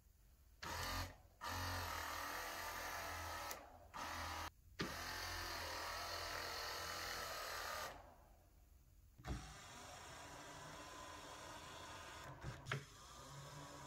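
Electric tilt motor of a Mercedes CLK steering column running in several short bursts and then one run of about three seconds, stopping about eight seconds in. The motor spins but the column does not tilt, the sign of a torn rubber flex coupling between the motor and the tilt gearbox. A couple of faint clicks come near the end.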